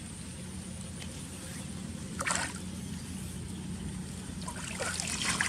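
Water splashing and sloshing, with one short splash about two seconds in and a run of smaller splashes near the end, over a steady low hum.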